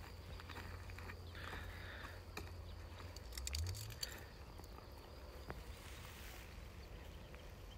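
Quiet outdoor ambience: a low steady rumble, likely wind on the microphone, with faint insect chirring. About three and a half seconds in there is a short rattle of quick clicks from a fishing rod and reel being cast.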